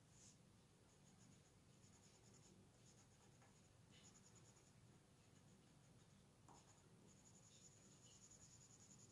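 Faint scratching of a watercolour pencil shading on cardstock, in short strokes that come and go.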